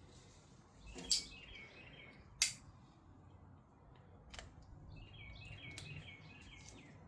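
Two sharp clicks of something being handled, about a second apart early on, the second the louder, with a bird chirping a quick run of short high notes twice in the background.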